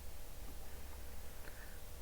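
Quiet room tone: a steady low hum with faint hiss and no distinct events.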